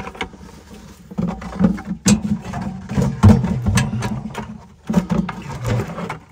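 Irregular clunks, knocks and scrapes as a plastic bucket with a metal sifting scoop inside is taken hold of and handled against an aluminium ladder, with rope and clothing rustle.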